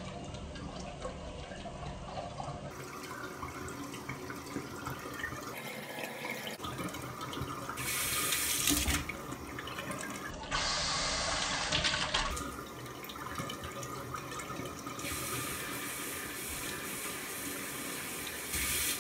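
Water running from a bidet tap into the ceramic bowl while a Bengal cat paws and splashes in it. The rush of water grows louder in several stretches.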